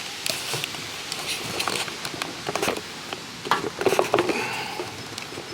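Irregular short metallic scrapes and clicks from work on the firewood processor's saw chain, beginning the chain sharpening; the busiest, loudest stretch comes a little past halfway.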